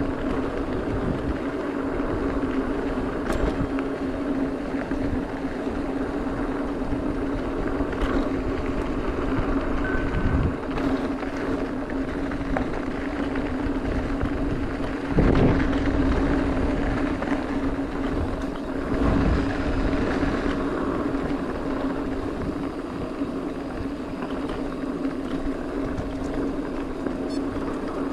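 Mountain bike rolling fast down a dirt fire road: tyre noise on the dirt, wind rumble on the microphone and a steady hum, with a louder rush about fifteen seconds in.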